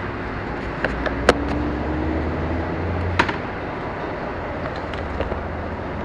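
Honda Bros motorcycle's single-cylinder engine running at low speed and idling as it rolls slowly and stops, a steady low hum. Two sharp knocks come about a second in and about three seconds in.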